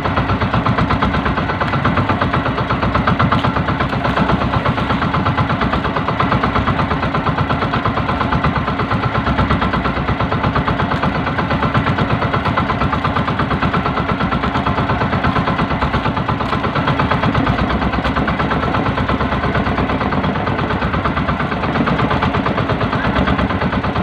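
The small engine of a motorized outrigger fishing boat running steadily, with a fast, even pulse.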